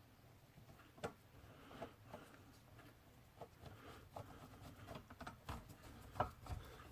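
Faint, scattered small clicks and taps of a screwdriver and computer parts being handled, with a sharper knock about a second in and another near the end.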